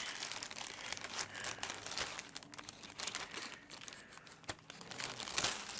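A mailed package being opened by hand: packaging crinkling and rustling in many small irregular crackles, with some tearing.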